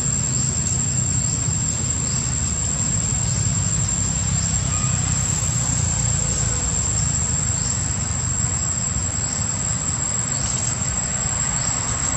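Steady outdoor ambience: a constant high-pitched insect drone with faint repeated chirps, over a steady low rumble.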